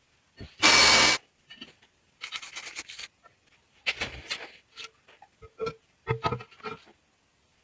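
Knife blade being scraped and rubbed in short strokes during restoration work. The loudest stroke is a dense, half-second rasp about a second in, followed by clusters of shorter scrapes and clicks.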